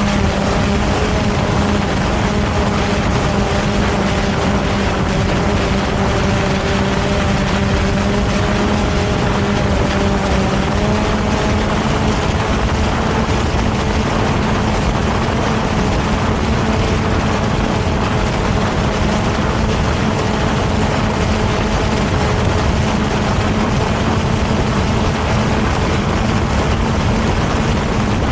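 Multirotor drone's motors and propellers whining steadily in flight, heard close from directly beneath it, over a rushing of air. The pitch of the upper tones shifts slightly about ten seconds in.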